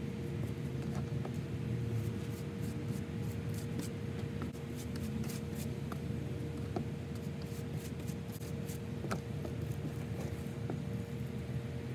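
Scratchy, uneven strokes and small clicks as a comb and gloved hands work bleach through wet human-hair bundles, over a steady low hum.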